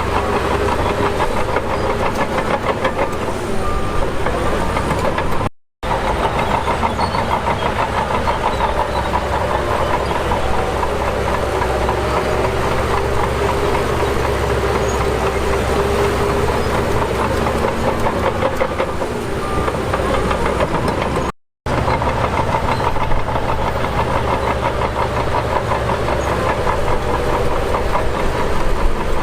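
Heavy construction-machine diesel engine running steadily with a fast clatter. The sound cuts out for a split second twice, once about five seconds in and again about twenty-one seconds in.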